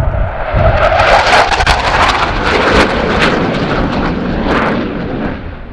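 Panavia Tornado GR4 jet passing low, its twin RB199 turbofans loud, with sharp crackling through the middle of the pass. The pitch slides down as it goes by, and the noise fades near the end.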